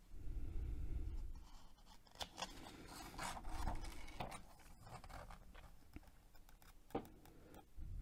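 Pages of a paperback activity book being turned and flattened by hand: paper rustling and rubbing, with a low bump at the start and a sharp tap about seven seconds in.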